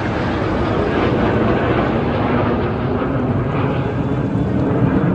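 Jet noise from a formation of Suryakiran BAE Hawk jet trainers flying overhead, a loud, steady rushing sound with no breaks.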